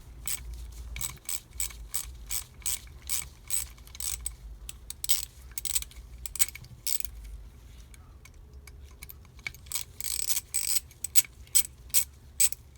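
A hand ratchet clicking in steady strokes as fasteners are backed out of an Edelbrock 1406 carburetor. The clicks pause briefly past the middle, then resume louder near the end.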